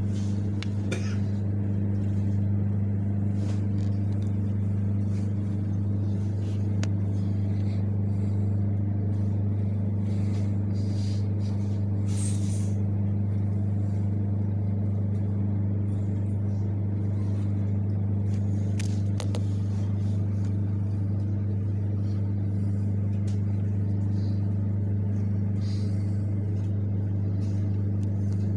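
Freight train of open wagons hauled by a VL80T electric locomotive rolling steadily past: a constant low hum with a few sharp clicks and clacks from the wheels and wagons.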